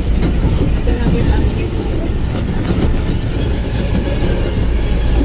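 A tourist road train's open carriage rolling over cobblestones: a steady rumble from the motor and wheels with a dense rattle from the carriage.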